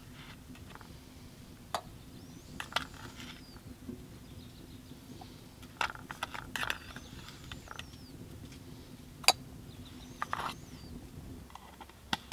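A utensil clicking and scraping in a small metal tin as it is stirred, with a low steady hum underneath that stops shortly before the end. Faint bird chirps come in three times.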